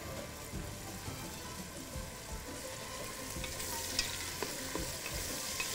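Diced onions sizzling as they fry in oil in an aluminium pot, being lightly browned, while a wooden spatula stirs them and knocks lightly against the pot a few times.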